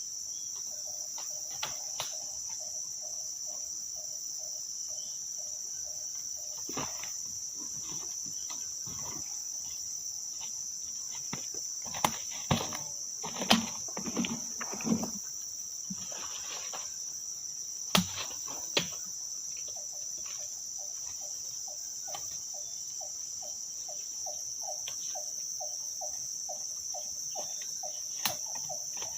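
Forest insects, crickets or cicadas, keep up a steady high-pitched drone. An animal call repeats in a pulsed series, about three notes a second, in two long runs near the start and the end. A cluster of scattered knocks and cracks comes through the middle.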